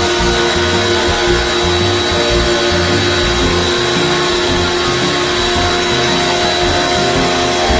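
Steady motor drone with a constant high whine from motorised cleaning equipment running without a break.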